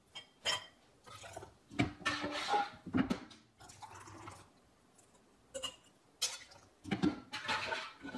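Stainless steel canning funnel and pouring pot knocking and clinking against glass mason jars as thick barbecue sauce is poured and scraped in: scattered short knocks and soft scrapes with brief quiet gaps.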